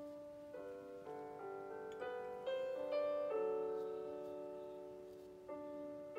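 Gentle background piano music: notes and chords struck at a slow, unhurried pace, each left to ring and fade.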